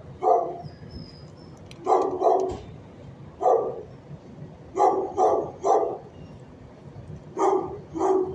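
Dog barking in short barks, single and in quick runs of two or three, about nine in all, with pauses between.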